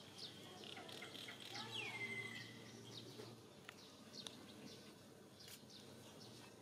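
Small birds chirping: many short, high chirps, with one longer falling whistle about two seconds in. A few faint clicks come later.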